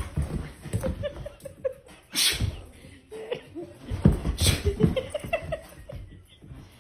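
A person laughing in short bouts, broken by two sharp, noisy bursts about two and four and a half seconds in.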